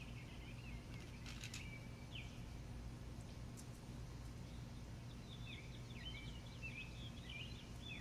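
Faint outdoor ambience: a small bird chirping in short high phrases, in two spells, at the start and again from about five seconds in, over a steady low hum, with a few faint clicks about a second and a half in.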